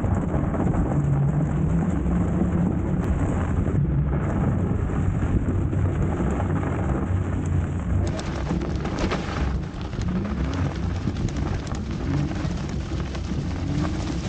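Steady low rumble of wind buffeting the microphone, mixed with tyre noise as an electric bike rolls over slushy, snowy pavement.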